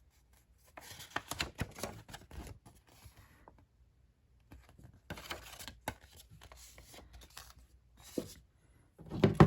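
Paper rustling and crinkling as a folded letter is handled, in two stretches with small clicks, followed by a louder knock near the end.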